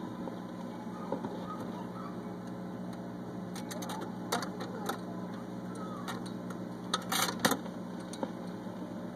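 RCA portable record changer cycling between records: a low steady hum, with the mechanism clicking as the tonearm swings out. About seven seconds in come louder clacks as the next 45 rpm single drops from the stack onto the platter.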